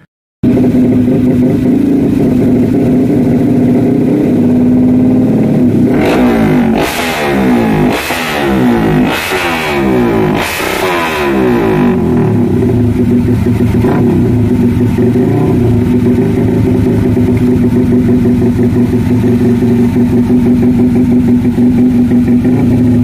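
200cc Yamaha motorcycle engine running through a Pro Liner MP1 aftermarket exhaust: it idles steadily, is revved hard in four or five quick throttle blips between about 6 and 12 seconds in, then settles back to idle with a couple of light blips.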